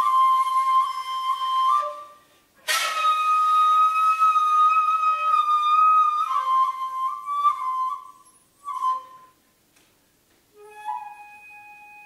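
Flute playing long held high notes, with a sharp accented attack about two and a half seconds in. The held note then gives way to a few lower notes. After a short silence a quieter, lower held note begins near the end.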